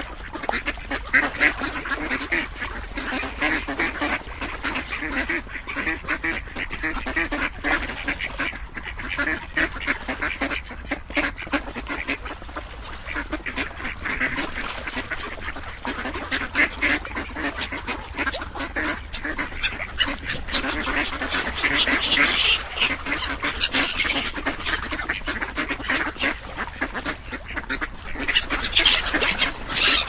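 A flock of ducks quacking, many calls overlapping without a break.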